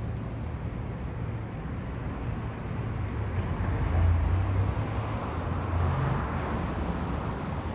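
Steady low rumble of vehicle noise, swelling louder about four to six seconds in.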